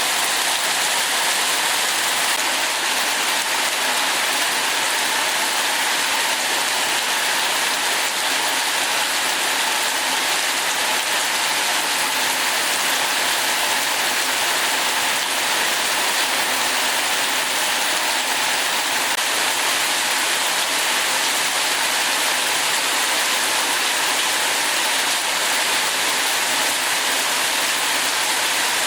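Heavy rain falling steadily, an even hiss of drops on surfaces that holds without a break.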